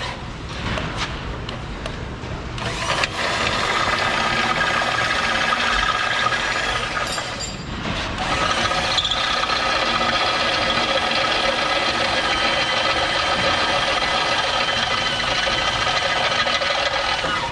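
Handheld power tool motor running steadily under load, cutting metal to open up holes in the bellhousing's adapter plate. It starts about three seconds in and eases off briefly near the middle before running on.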